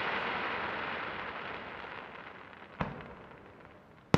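Aerial fireworks: the hiss of a glittering shell burst dying away, then a single sharp bang about two-thirds of the way in and a louder one at the very end as the next shells go up.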